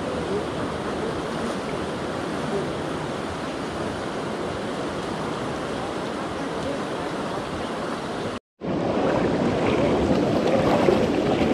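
Fast-flowing muddy river water rushing steadily over shallows. The sound cuts out for a split second about eight and a half seconds in, then returns a little louder.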